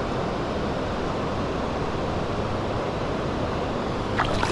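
Steady rushing of a creek waterfall, an even wash of water noise with no let-up. A few short, sharp sounds cut through it near the end.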